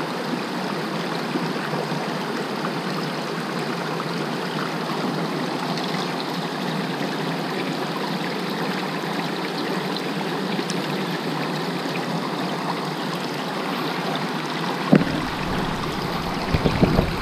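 Mountain stream rushing steadily over boulders. Near the end, a few thumps and a low rumble come from the camera being handled.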